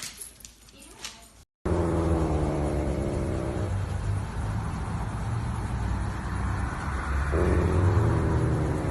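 A steady low rumble like a vehicle running starts suddenly about a second and a half in. A droning hum rises over it twice.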